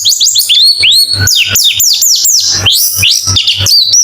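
White-eyes (pleci) twittering in a fast, unbroken stream of high chirps, each note gliding quickly up or down, several notes a second with no pause.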